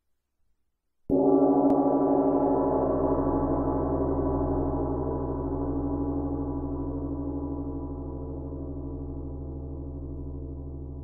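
A 52.5 cm Nepalese gong struck once about a second in and left to ring. Its deep hum sits under many higher overtones, and the whole sound fades slowly with a slight pulsing.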